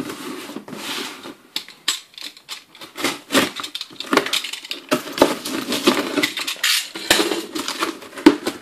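Cardboard parcel being opened: a box cutter slitting the plastic packing tape, then the tape being pulled back and the cardboard flaps torn open, an irregular run of sharp cracks, scrapes and rustles.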